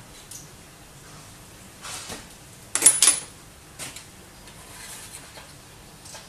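Small metal-on-metal clinks and clatter: a quick run of sharp knocks about three seconds in, the loudest with a brief high ring, and lighter taps before and after it. The sound comes from a metal tool and processors being handled on a metal heating plate while the processor caps are worked loose.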